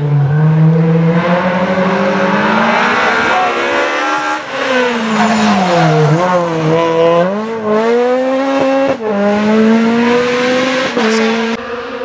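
Rally car engines at high revs, passing close through a corner. The pitch climbs, drops sharply and climbs again as the drivers lift off, brake and change gear. In the middle the engine is a Renault Clio rally car's.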